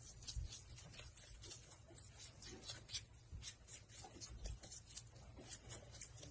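Faint, dry scratching and rustling: irregular soft ticks, several a second.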